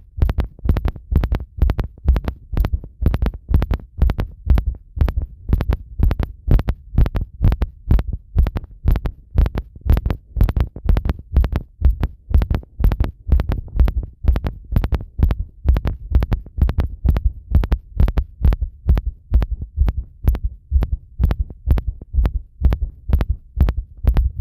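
Human heartbeat picked up with the microphone pressed against the chest after a bath: a steady, regular lub-dub at about one and a half beats a second, each beat a low thud with a sharp click on top.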